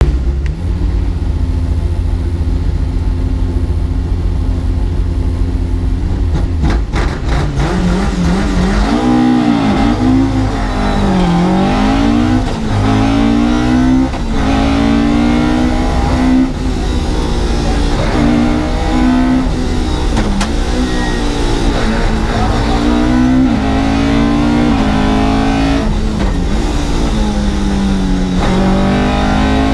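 Historic rally car engine heard from inside the cabin: held at steady revs for about seven seconds, then the car accelerates hard and the engine note climbs and drops back again and again as it is run up through the gears from first to third.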